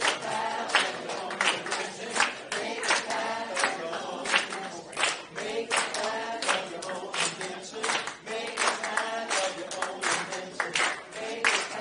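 Voices singing together with hand clapping on a steady beat, about two claps a second.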